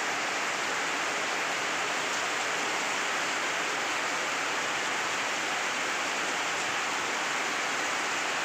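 Heavy rain pouring down steadily on a concrete yard and garden plants, a dense even hiss with no breaks.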